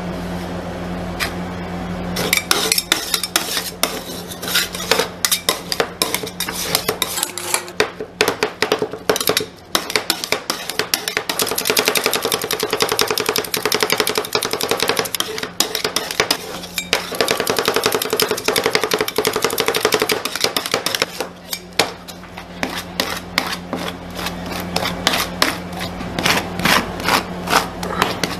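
Two metal spatulas chopping and scraping ice cream mixed with crushed cookies and cake on a steel cold plate: rapid, irregular metal clacks in dense runs, with smoother scraping in the middle as the mixture is worked and spread flat. A steady low hum runs underneath.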